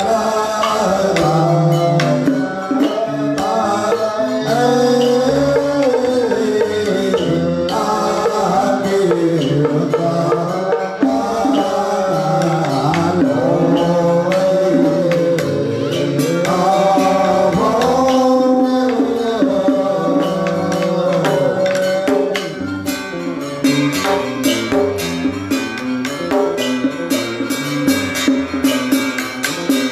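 Vietnamese ceremonial nhạc lễ music: a melody line that slides and wavers between notes over a hand-and-stick-struck barrel drum (trống). In the last several seconds the percussion turns into fast, dense strikes.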